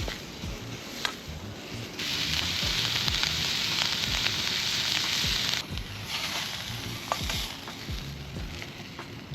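Food sizzling in a pan over a campfire, with small crackles throughout. The sizzle comes in loud for a few seconds in the middle, then returns more faintly.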